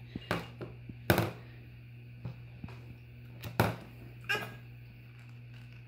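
A plastic baby bottle knocking and thudding against a plastic high-chair tray as a baby handles it and sets it down: several separate knocks, the loudest about a second in and about three and a half seconds in.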